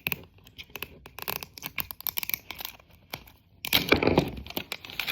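Toy blind-box packaging crinkling and crackling as it is handled, with a louder tearing rip a little under four seconds in. This is a crisp sound that is satisfying to hear.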